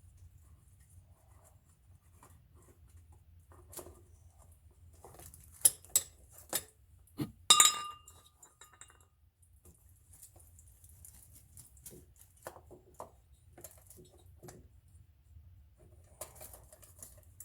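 Metal tools being handled and set down: a few sharp clinks about six seconds in, then a louder metallic clank that rings briefly. Quieter knocks and rustles of handling follow.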